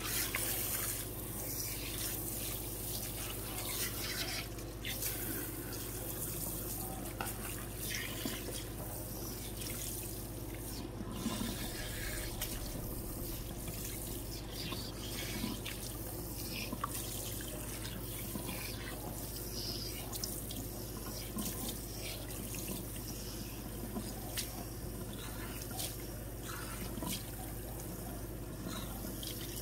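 Water running steadily from a salon shampoo-bowl spray hose over long wet hair and into the bowl, with small splashes and drips as hands work through the hair, rinsing out a hair relaxer.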